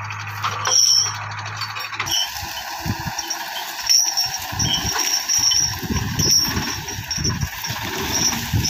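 Hindustan HWD50 tractor's diesel engine running: a steady drone for about the first two seconds, then a less even, fluctuating low sound.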